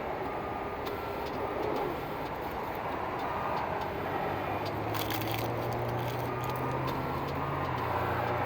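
Receipt printer running with a steady whirring noise and a few clicks; a low hum joins in about halfway. The printer is still faulty after repair.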